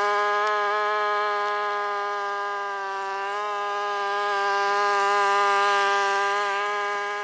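A steady droning hum with many overtones, holding one pitch with slight wavers, cutting off abruptly at the very end.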